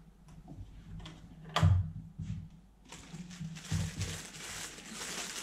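A single knock about a second and a half in, then the crinkling of a plastic bag as a mains power cord packed in it is picked up and handled.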